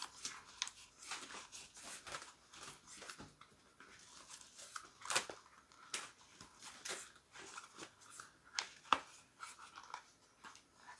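Gloved hands rolling a bicycle tyre, its bead cut off, into a tight coil: faint rubbing and rustling of the rubber with scattered small clicks and crackles.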